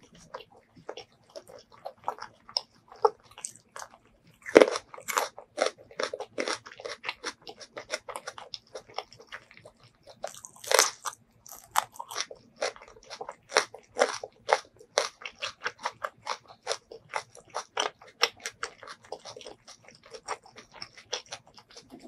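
Close-miked eating sounds: crisp crunching bites and chewing of food in quick succession, the loudest crunches about four and a half and eleven seconds in.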